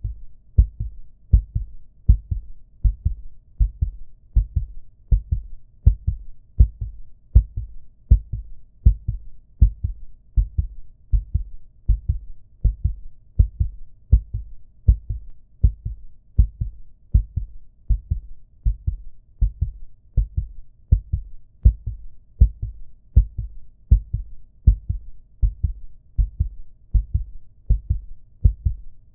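Looped recording of a human heartbeat: a steady, slow rhythm of paired low thumps (lub-dub), each pair about a second apart.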